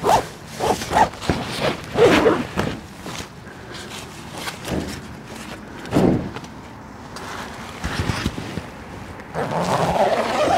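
Tent door zip being pulled and the thin Dyneema tent fabric rustling, in several short swishes.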